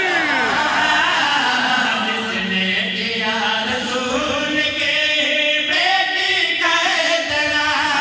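Several men's voices chanting a devotional qaseeda together into microphones, a lead reciter with others joining in.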